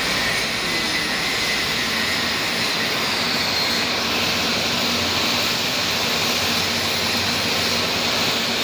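Mini backhoe loader's engine running steadily, a constant hissing drone with no change in speed.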